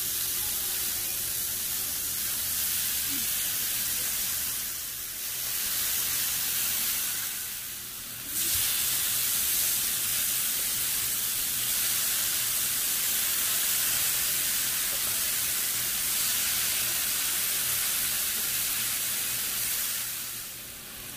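Thin marinated chicken fillets sizzling on a hot flat griddle (comal), a steady frying hiss that dips briefly twice partway through.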